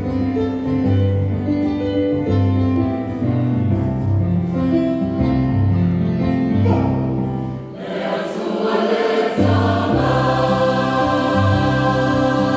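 Choral music with sustained sung chords; it dips briefly about eight seconds in, then fuller, higher voices come in.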